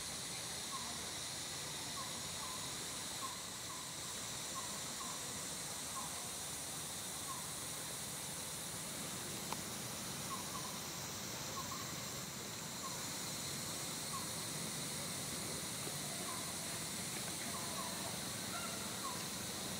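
Steady high hiss of forest insects, with faint short chirps every second or so.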